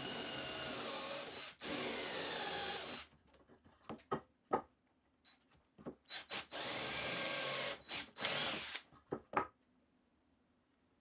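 Cordless drill turning a countersink bit into the pilot holes of a framing-lumber 2x3 brace, countersinking them for the screw heads. It runs in two pairs of short runs of about a second each, with small clicks and knocks between.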